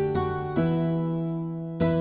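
Background music: a light keyboard tune in a harpsichord-like plucked tone, its chords changing about every half second to second.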